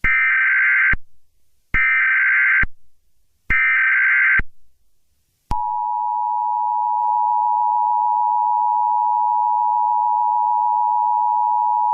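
Emergency Alert System tones: three bursts of SAME header data, each about a second long with short gaps between, then about five and a half seconds in the EAS attention signal starts, a steady two-tone beep (853 and 960 Hz) that holds without a break.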